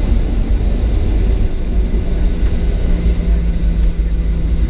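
Boeing 737-700's CFM56 jet engines and airframe heard from inside the cabin: a loud, steady rumble. A low, steady hum joins in about a second and a half in.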